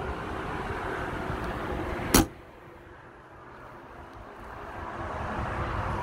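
A single sharp bang about two seconds in, typical of a travel trailer's pass-through storage compartment door being slammed shut onto its latch, over a steady background rumble.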